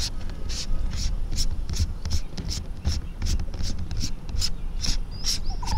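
A regular series of short, sharp, high-pitched ticks, about two to three a second, over a steady low rumble.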